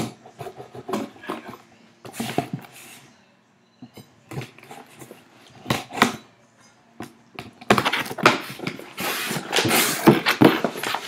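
A knife scraping through the packing tape on a cardboard shipping box in short, separate strokes and knocks. About eight seconds in, a longer, louder stretch of cardboard scraping and rustling follows as the box flaps are pulled open and the box is handled.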